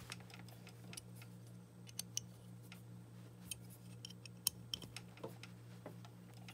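Light, irregular metallic clicks and taps from handling a steel clamping fixture and turning its jack screws with a hex key, over a faint steady hum.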